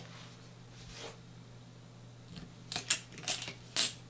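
A small hex driver clicking and clinking against the metal pinion gear and its set screw on a brushed RC motor's shaft. There is quiet at first, then about four sharp metallic clicks from a little before three seconds in.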